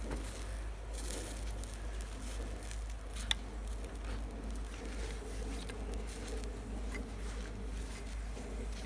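A faint, steady hiss with light crackling from a wood campfire burning under a small steel frying pan holding a grilled cheese sandwich. One sharp click sounds about three seconds in.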